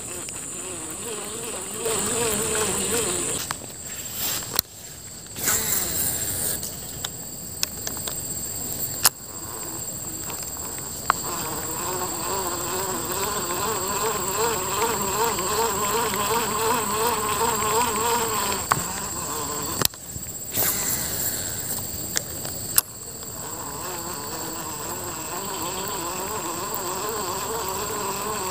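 A small flying insect buzzing close by, its whine wavering up and down in pitch and coming and going for several seconds at a time. A steady high insect drone sounds in the first few seconds, with a few sharp clicks scattered through.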